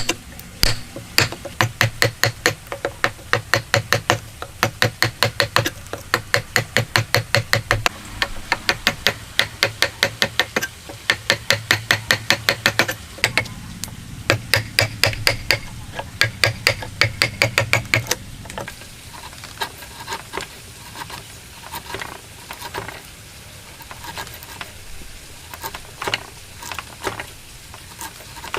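Hammer blows in fast runs, about four or five strikes a second with a ringing note, as in hand-cut woodworking. About two-thirds of the way through they give way to scattered, lighter taps.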